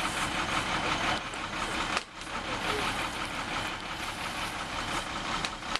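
Engine of the tree-removal equipment running steadily, with a brief drop in level about two seconds in.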